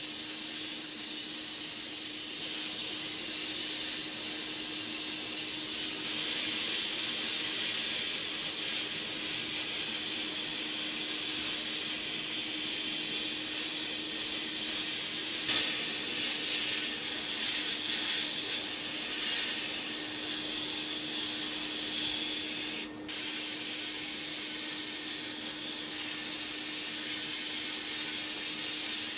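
Sandblasting gun in a blast cabinet, a steady hiss of compressed air and abrasive grit stripping rust off steel parts, over a faint steady low hum. The blast stops for an instant once, near the end.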